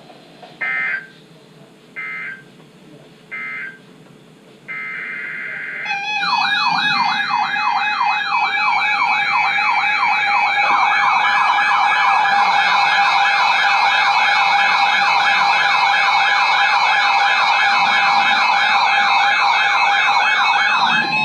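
Emergency Alert System signalling between two broadcast warnings: three short bursts of digital data tones, then a longer one, followed by a loud alert tone that warbles rapidly up and down over a steady lower tone.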